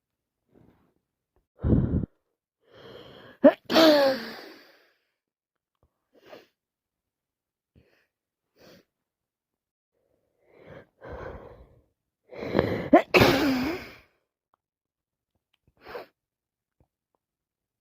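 A woman with a cold sneezing twice, about four seconds in and again near thirteen seconds, each sneeze preceded by catching, gasping breaths, with short sniffs in between. A short low burst comes about two seconds in.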